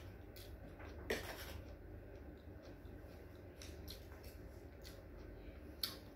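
Faint eating sounds: a spoon clicking and scraping in a small bowl and food being handled and eaten by hand, with a sharper click about a second in and another near the end, over a low steady hum.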